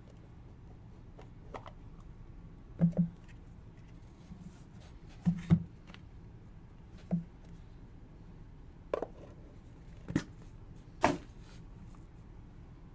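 Hands opening and handling a trading card box and its contents: a scattering of short knocks and taps, several in close pairs, the loudest near the end.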